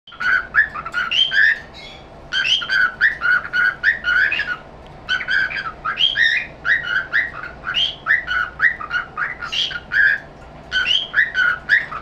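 Cockatiel whistling and chirping: a run of quick whistled notes in phrases, broken by brief pauses.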